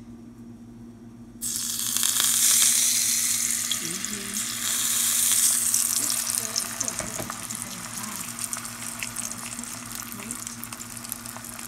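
Beaten eggs poured into a pan of hot fat, hitting it with a sudden loud sizzle about a second and a half in. They then fry with a steady crackling sizzle that eases off somewhat.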